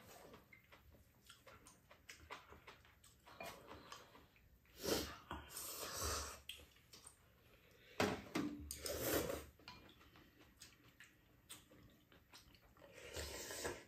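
Eating at a table: chopsticks and spoons clinking against bowls and a metal tray, with several louder slurps of glass noodles and soup.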